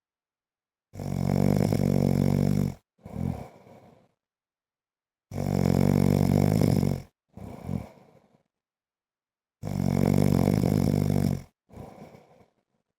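A man snoring: three long, loud snores of about two seconds each, coming roughly every four seconds, each followed by a shorter, quieter breath.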